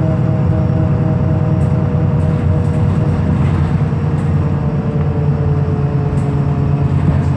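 Interior sound of a Wright Pulsar-bodied VDL SB200 single-deck bus on the move: a steady engine drone with a faint transmission whine that drifts slightly down in pitch.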